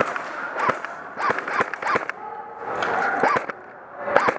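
Airsoft guns firing irregular single shots, sharp snaps with a short echo in a large warehouse.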